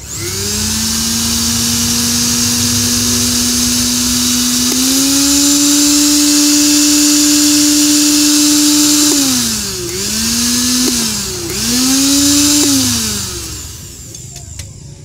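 Cosmos CB 282 P blender motor running freely again after its jammed motor was freed with lubricant. It spins up, runs steadily, steps up to a higher speed about five seconds in, then is switched off and pulsed on twice, winding down each time.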